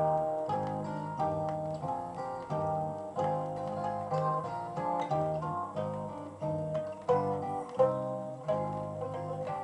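An LP playing on an Amstrad RP33 belt-driven record player: plucked-string music with a steady run of notes, and the record a bit crackly.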